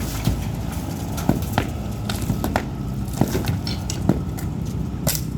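Wall demolition: irregular sharp knocks and clatter, about seven in a few seconds, from tools striking the wall and debris falling, over a steady low hum.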